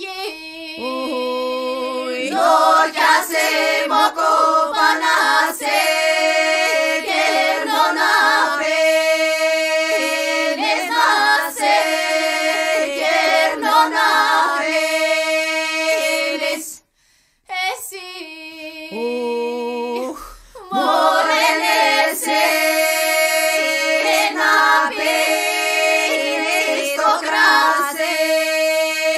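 A cappella female vocal ensemble singing polyphonic folk song: several voices move above a low held drone note. The singing breaks off briefly about two-thirds of the way through, then comes back in softly and swells again.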